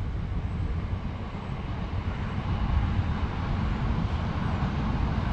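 Low rumble of a passing train, growing slowly louder.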